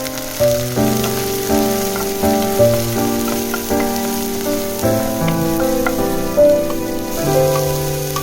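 Background music of held notes that change about every half second, over a steady sizzle of cauliflower fried rice frying in a pan.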